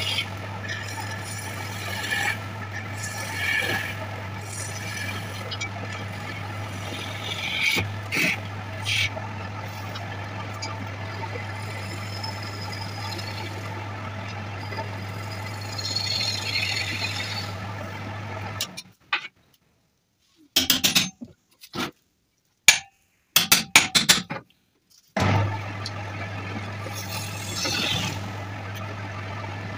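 Electric wood lathe motor humming steadily while a hand-held turning chisel cuts the spinning wooden blank in repeated scraping, hissing passes. For several seconds past the middle the sound cuts out to silence, broken by a few sharp knocks and clicks, before the lathe's hum and the cutting come back near the end.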